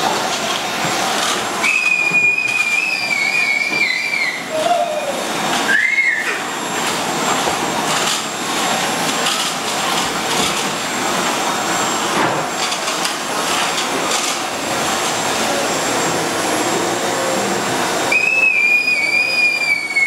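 AEG canister vacuum cleaner running steadily on a wood floor. A high, drawn-out tone that slides slightly downward sounds over it about two seconds in and again near the end, with a short higher chirp about six seconds in.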